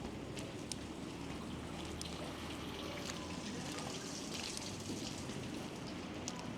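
Outdoor ambience in a snowstorm: a steady hiss with scattered, irregular light ticks.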